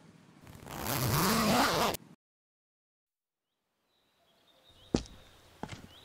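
A bag's zipper pulled closed for about a second and a half, cutting off suddenly. After a gap of silence, birds chirp faintly and footsteps begin on cobblestones, two steps near the end.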